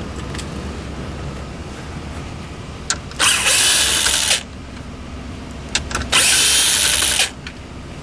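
Power drill/driver with a 7mm socket spinning out two dash bolts: two runs of about a second each, roughly three seconds apart, with a small click just before each as the socket seats on the bolt.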